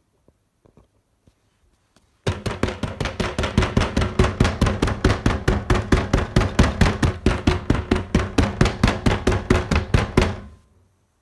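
French bulldog crunching a prawn cracker close up: a fast, even run of crunches, about five a second. It starts abruptly a couple of seconds in and fades out near the end.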